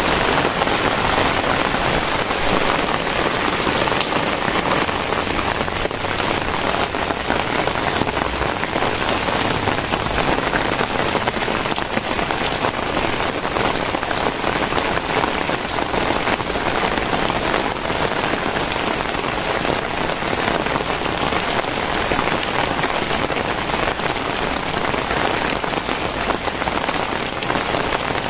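Very heavy rain falling steadily, a dense, even hiss of countless drops striking.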